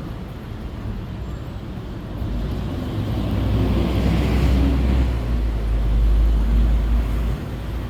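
City street traffic: a vehicle's deep engine rumble and tyre hiss builds from about two seconds in as it passes close by, then drops away suddenly near the end.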